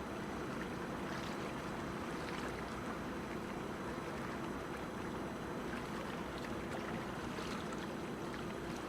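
Steady harbour-side ambience: an even wash of water and distant city noise with a low, steady hum like a boat's engine underneath.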